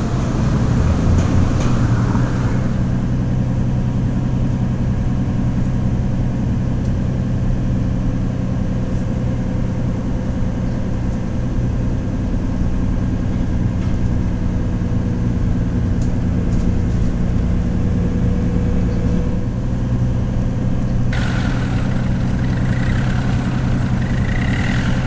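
Steady engine drone of a moving road vehicle, heard as a travelling sound effect, running evenly throughout. Near the end a higher hiss joins in.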